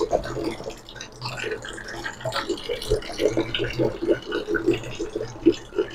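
Water running from the outlet of a small instant electric water heater and splashing, irregular and steady in level.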